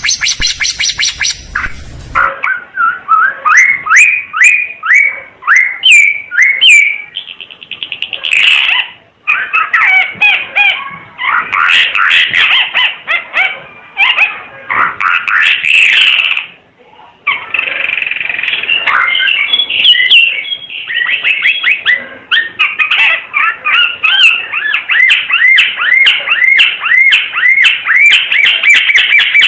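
Timor figbird singing long runs of short, quick rising whistled notes in bursts with brief pauses. A harsher call opens the first couple of seconds, before a cut.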